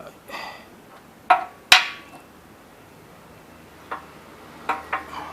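Sharp metal knocks and clinks, a few with a short ring, the loudest pair about a second and a half in: steel parts of a removed car front suspension frame being handled.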